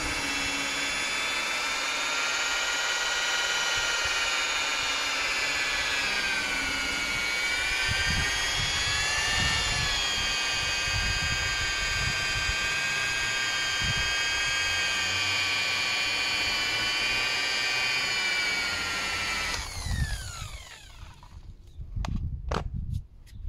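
Small electric polisher spinning against a plastic headlight lens, its whine sagging and recovering in pitch as it is pressed in. About 20 seconds in it is switched off and winds down, followed by a few knocks as it is handled.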